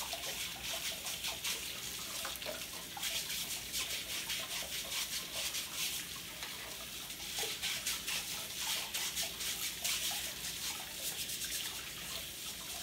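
Kitchen tap running into a sink while a juicer's cutting part is scrubbed with a small brush under the stream, quick bristle strokes over the water. The scrubbing comes louder in two spells, one in the middle and one later on.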